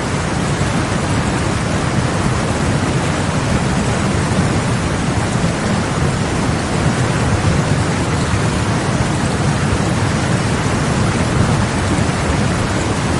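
Heavy rain falling steadily, with a continuous low rumble beneath it.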